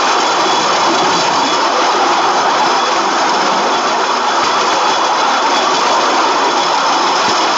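Electric rail kart running steadily along the track at about 8–10 mph: its two 24-volt DC motors, sprocket-and-chain drive and 5-inch wheels on the rails make a continuous steady running noise, with a faint high whine over it.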